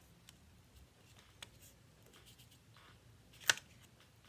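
Faint rustling of paper cut-outs being handled and turned over on construction paper, with one sharp click about three and a half seconds in.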